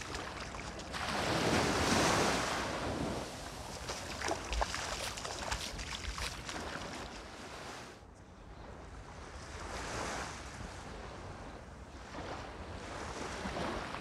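Small waves washing up on a sandy shore, the surf swelling and falling back twice, loudest about two seconds in and again near ten seconds, with wind on the microphone. The sound turns duller suddenly about eight seconds in.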